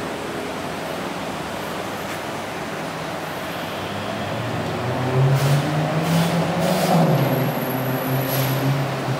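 A motor vehicle's engine running, becoming louder and more prominent about four and a half seconds in, its pitch shifting a little, with a few short hisses on top.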